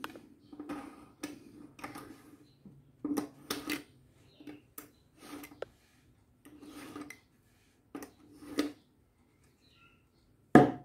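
A steel kitchen knife blade drawn again and again through the wheels of a handheld pull-through knife sharpener, a scraping rasp with each stroke, about a dozen strokes of uneven length. Near the end comes a single sharp knock, the loudest sound.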